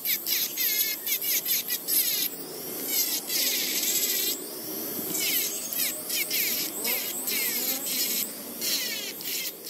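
Handheld rotary tool with a small sanding drum running against the steel head of a cross peen hammer. Its motor whine rises and dips as the drum is pressed on and eased off the metal, in repeated short passes.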